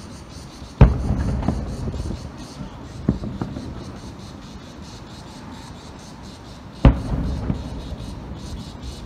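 Aerial firework shells bursting: a loud bang about a second in and another near the end, each trailing off in a rumble with smaller bangs, and a couple of lighter bangs in between.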